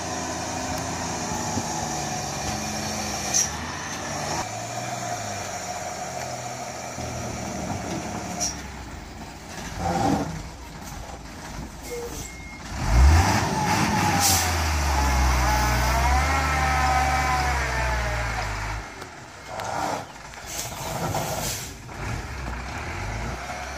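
Heavily loaded Hino FM8J truck's diesel engine running as the truck works slowly around a tight bend, with short sharp hisses and a sudden loud burst about halfway through. A warbling tone sounds for a few seconds after the burst.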